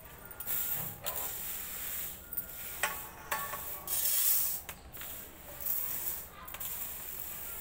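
Dry lentils swishing and rattling across a stainless steel plate as it is tilted and shaken, an irregular hiss with scattered small clicks.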